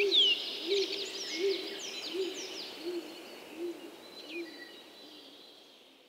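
Woodland birdsong: a steady series of low hoots, about one every three-quarters of a second, under a chorus of high chirps and down-slurred whistles from songbirds, all fading out gradually.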